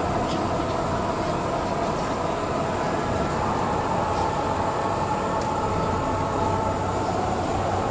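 Steady rumble of a metro train standing at the platform with its doors open, over the noise of a boarding crowd; a low hum rises near the end.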